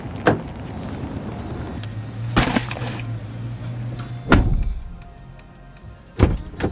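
Background music with car-door sounds: a few sharp knocks, then two heavy thumps, about four seconds in and near the end.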